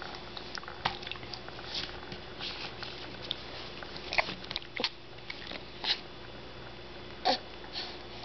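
A plastic sippy cup handled by a baby, making scattered soft taps, clicks and knocks at irregular intervals, with a few louder knocks near the middle and toward the end.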